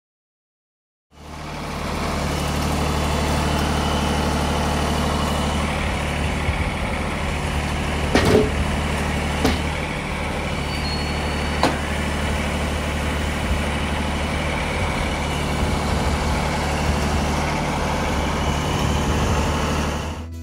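Wood-Mizer portable sawmill's engine running steadily at an even pitch, cutting in about a second in, with three sharp knocks between about eight and twelve seconds in.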